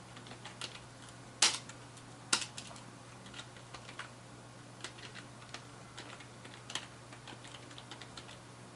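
Typing on a computer keyboard: irregular, sparse keystrokes with a couple of louder key presses early on, over a steady low hum.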